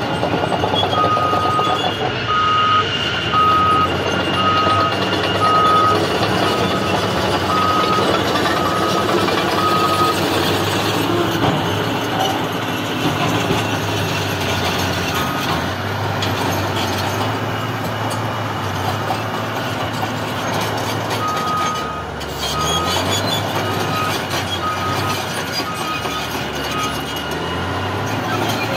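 Heavy mine vehicle engine running steadily, with a reversing alarm beeping about once a second, first for several seconds and again later.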